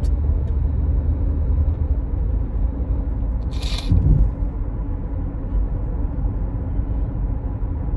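Steady low road and engine rumble inside a moving car's cabin, with one short, breathy crying sniff about three and a half seconds in.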